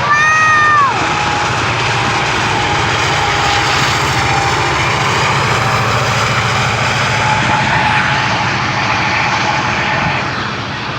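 BNSF coal train passing close by: locomotive diesel engines running with a low hum over steady wheel and rail noise. It opens with a brief high squeal, about a second long, that rises and then falls.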